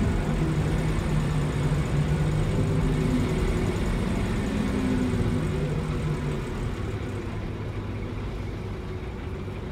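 Scania K340EB4 coach with an Irizar PB body, heard from inside the passenger cabin: the diesel engine's steady note over road noise while it travels. About six seconds in the engine note drops away, and the sound grows gradually quieter.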